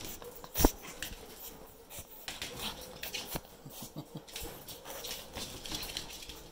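Pug puppies moving about a wire crate: scattered small knocks, clicks and scuffles, with one loud sharp knock about half a second in.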